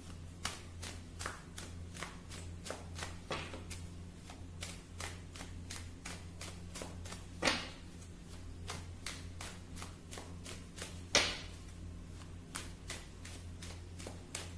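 A tarot deck being shuffled by hand: a steady run of soft card clicks, about three or four a second, with two louder slaps about halfway and about three-quarters of the way through. A low steady hum sits underneath.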